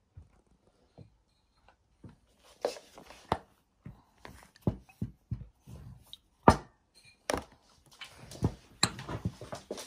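Perfume boxes and glass perfume bottles being handled: an irregular run of knocks, clicks and soft rustles as a bottle is lifted out of its box insert and set down, with the loudest knock about six and a half seconds in.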